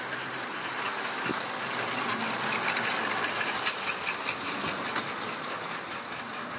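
O gauge model goods train rolling past on metal track: a steady rolling hiss with quick clicks as the wagons' wheels run over the rail joints, thickest through the middle and easing slightly toward the end.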